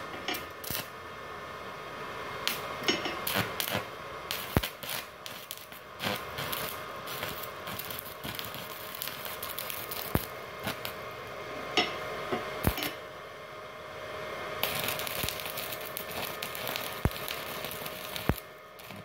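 Stick-welding arc crackling and sputtering from a 4 mm electrode on a small 450-watt Multipro inverter welder, with many sharp irregular clicks. The machine is too weak for a rod this thick: the arc is not big enough and, only if forced, burns without fusing properly.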